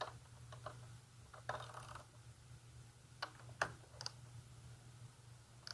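Scattered light metallic clicks and a short scratchy rattle from hand tools tightening the front wheel bolts of a motorcycle, with one sharper click past the halfway point, over a steady low hum.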